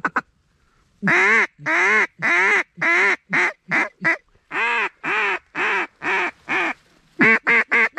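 Duck call blown in a run of loud quacks to turn passing ducks: it starts about a second in with long drawn-out quacks that grow shorter, pauses briefly, runs again, then breaks into quicker, shorter quacks near the end.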